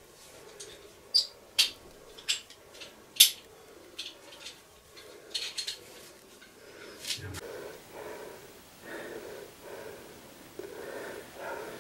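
Sharp scrapes and clicks of a caver climbing up through a rock squeeze, followed about two-thirds of the way in by heavy, laboured breathing, roughly a breath a second. The breathlessness is what the cavers take for very high carbon dioxide in the cave air.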